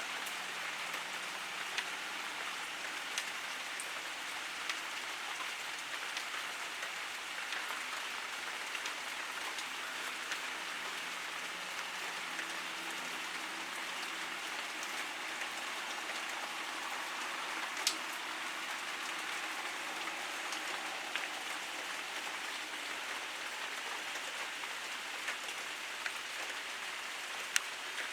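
Pouring rain falling steadily, an even hiss, with a few sharp ticks standing out, the clearest about two-thirds of the way through and near the end.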